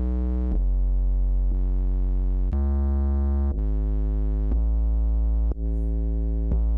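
Bass sound playing a run of sustained notes, a new pitch about once a second. Every note comes out at nearly the same loudness, squashed by a compressor with a very short attack that leaves almost no dynamic range.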